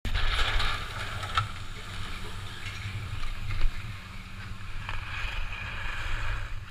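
Skis scraping and sliding over packed snow as a skier comes off a chairlift unload ramp, over a steady low rumble of wind on the microphone.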